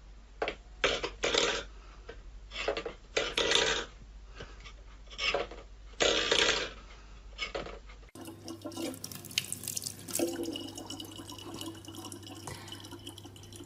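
A cat paws a stainless-steel bowl across a wooden floor, the metal bowl sliding and clattering in a string of short bursts. About eight seconds in this gives way to a thin stream of water running from a dispenser tap into a plastic bottle, a steady trickle with a low hum underneath.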